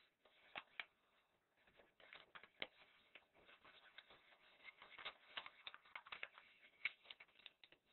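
Faint rustling and crinkling of a sheet of A4 paper being folded and creased by hand, with scattered sharper ticks as the paper is lifted and pressed down.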